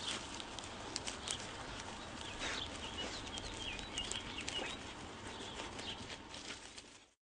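Small birds chirping in quick wavering calls, over a background of rustling and scattered light clicks; the sound cuts off abruptly near the end.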